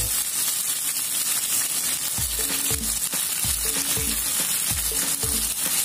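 Fish fillets sizzling steadily as they fry until brown.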